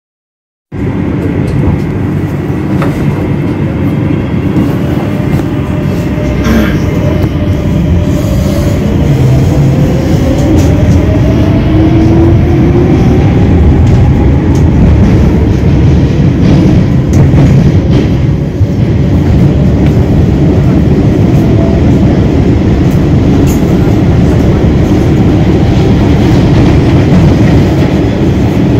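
Madrid Metro Line 10 train running through a tunnel, heard from inside the carriage: a loud, steady rumble of wheels on rail with scattered clicks, starting abruptly about a second in. Through the middle a whine rises in pitch as the train gathers speed.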